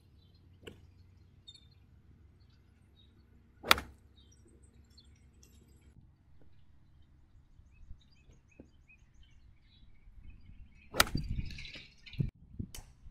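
Pitching wedge striking golf balls: a sharp crack about four seconds in, then a second strike near the end followed by a brief swish of the club through the turf and a few quicker clicks. Faint bird chirps in between.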